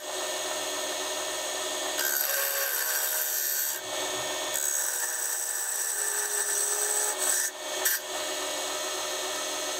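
Wood lathe running while a sphere-cutting jig's cutter scrapes the spinning wood blank: a steady rasping cut over the lathe motor's whine, its texture shifting a few times as the cutter is swung across the wood.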